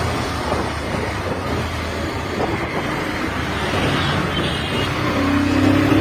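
Bajaj Pulsar 220F's single-cylinder engine running while the motorcycle is under way, mixed with wind and road rush. About five seconds in, the engine note becomes steadier and a little louder.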